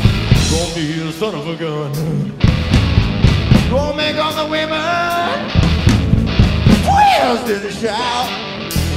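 Live blues-rock band playing: electric guitar, bass and drum kit, with a male singer holding long, wavering notes.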